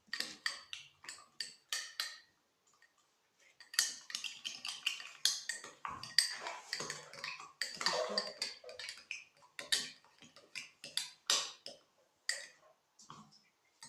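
Spoon clinking and scraping against a glass in quick, irregular taps, as a slime mixture is stirred, busiest in the middle.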